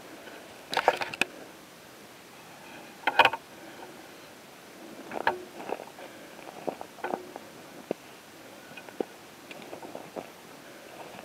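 Footsteps and rustling through dry grass and brush, in short irregular scrapes, with the two loudest rustles about a second and three seconds in.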